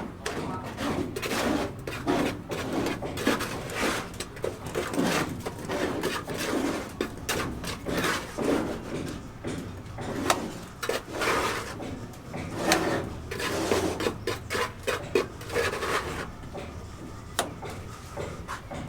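Irregular knocking, scraping and rubbing, with a few sharp clicks, as of hand work with tools and building materials.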